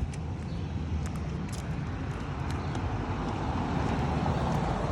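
Road traffic noise from a passing car, a steady rush of tyres on the road that grows slowly louder toward the end.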